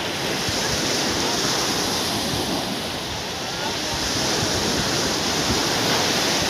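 Small surf breaking and washing onto a sandy beach, swelling and easing, with wind buffeting the microphone.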